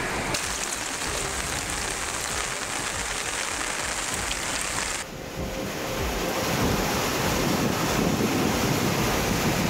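Floodwater rushing, with wind buffeting the microphone. About halfway through the sound cuts abruptly to a louder, fuller rush of a fast torrent.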